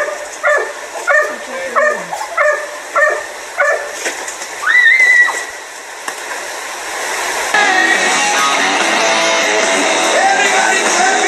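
A string of about six short, high yelps in a steady rhythm, then one louder, higher cry that rises in pitch. Music comes in about two-thirds of the way through and carries on.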